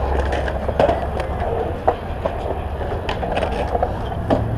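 Skateboard urethane wheels rolling and carving on a smooth concrete bowl: a steady low roar, broken by a few sharp clacks from the board about one, two and four seconds in.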